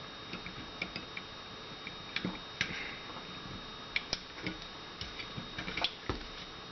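Irregular light clicks and scrapes of a flattened paper clip and fingers working the small takedown-lever spring inside a Beretta PX4 Storm Compact pistol's polymer frame, trying to press the spring down so the lever will come free.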